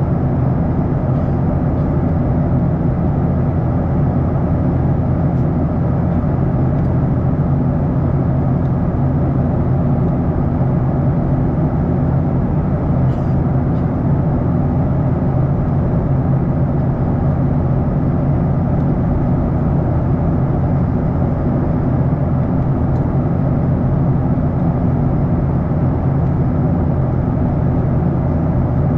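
Steady cabin noise inside a Boeing 737-800: the CFM56 engines' low, even drone, unchanging throughout.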